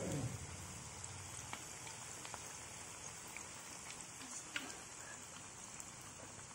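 Vegetable cutlets frying in hot oil: a steady sizzle with scattered small pops.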